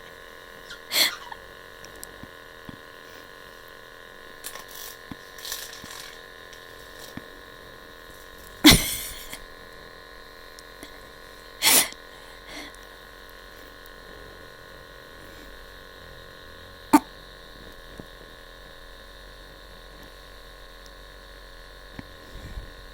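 Black-headed caique sneezing: a few short, sharp bursts spaced several seconds apart, the loudest about a third of the way in, over a steady faint hum.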